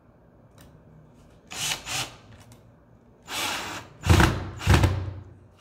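A handheld power screwdriver runs in five short bursts, driving a screw through a D-ring into the wooden stretcher bar of a canvas. The screw has landed on a staple.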